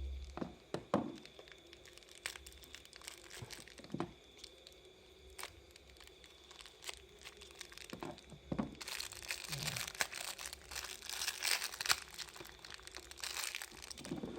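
Packaging of a small parcel being handled and unwrapped: scattered clicks and light handling knocks, then dense crinkling and tearing from a little past halfway.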